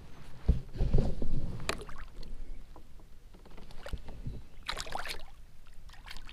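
Largemouth bass being released over the side of a plastic sit-on-top kayak: a few sudden knocks on the hull and water splashes, the loudest about a second in and another pair around five seconds in.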